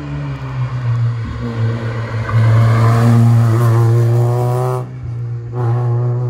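Small hatchback rally car's engine accelerating hard past, its note climbing steadily for a few seconds, then dropping off abruptly near five seconds before pulling again.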